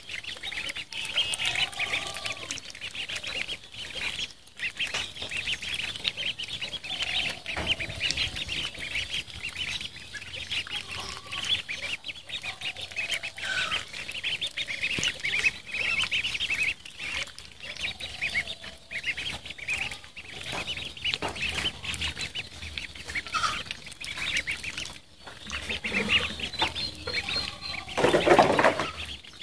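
A group of ducklings peeping continuously in rapid, high overlapping chirps as they swim. A louder sound breaks in near the end.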